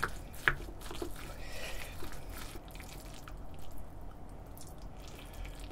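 Wooden spoon stirring and scooping sticky rice mixed with seaweed and egg in a ceramic bowl: soft wet squelches with a few light clicks, mostly in the first couple of seconds.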